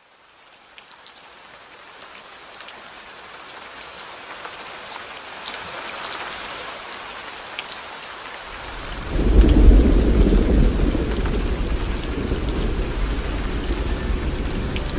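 Steady rain fading in, with scattered drops tapping. About nine seconds in a long, deep thunder rumble breaks in and keeps on under the rain.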